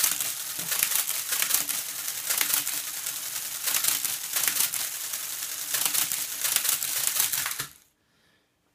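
Monroe CSA10 electro-mechanical calculator running an automatic division: a steady electric-motor hum under fast, dense clattering of its levers, cams and shifting carriage. It stops abruptly near the end as the division completes.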